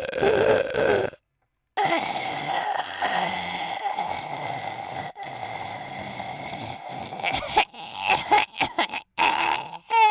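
A man's exaggerated vocal imitation of an old man snoring. It opens with a short croaking, belch-like sound, then after a brief pause comes a long rasping snore of about six seconds, which breaks into short sputtering bursts near the end.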